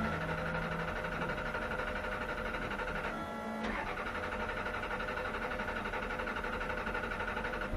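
Starter motor of a stationary race car cranking the engine: a steady electric whine with fast, even pulsing, the engine not catching. The whine drops out briefly a bit past three seconds in, then resumes.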